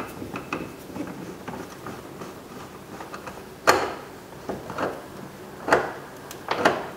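Clicks and knocks of plastic trim and a screwdriver as a Phillips screw is driven in to fasten a truck's interior door panel. There are light ticks at first, then three louder knocks in the second half.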